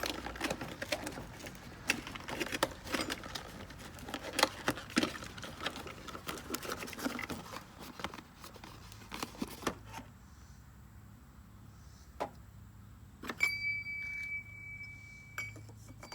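Metal tools rattling and clinking as someone rummages through a toolbox, dense for about ten seconds, then a few separate clanks; the last, about thirteen seconds in, is followed by a steady high tone that keeps on.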